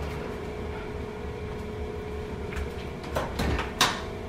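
Oven door being opened to take out a baking dish: a few knocks and clacks about three seconds in, the sharpest just before the end, over a steady low hum.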